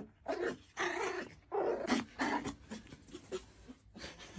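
A dog vocalizing in about four short calls over the first two and a half seconds, then quieter with a few faint clicks.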